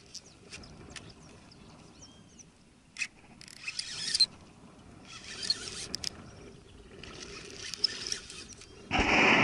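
Fishing reel cranked in short bursts with a light whirring hiss as a surface lure is worked back across the water, with a few small clicks. A loud rush of noise starts near the end.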